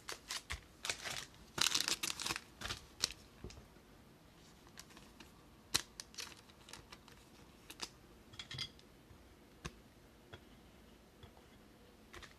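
Trading cards being handled and set down: a quick run of card flicks, slides and clicks in the first three seconds or so, then scattered single light clicks and taps.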